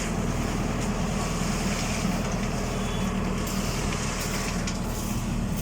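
Tractor's diesel engine running steadily, driving the PTO-powered transit concrete mixer drum.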